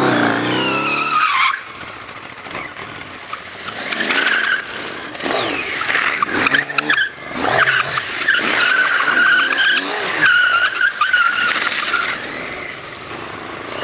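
Motorcycle-and-sidecar outfit on tarmac: the engine revving hard for the first second and a half, then its tyres squealing again and again in long wavering squeals.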